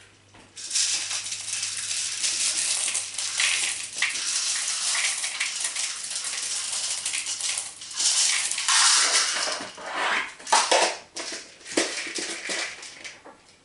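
Small rainbow beads rattling in a small clear cup as they are shaken and tipped out into a bowl. The rattle runs almost unbroken for about seven seconds, then comes in several shorter bursts.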